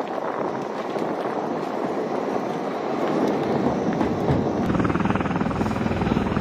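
MV-22 Osprey tiltrotor running on the flight line, its turboshaft engines and proprotors making a steady roar that grows louder and deeper with a rapid rotor beat about four and a half seconds in.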